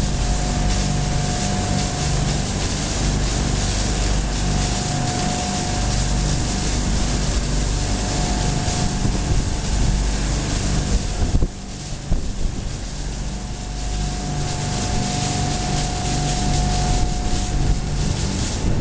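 Electric-motor-driven flake-ice delivery machine of a concrete cooling system, running steadily. It makes a low hum and a thin steady whine over a wide hiss, which dips briefly about halfway through.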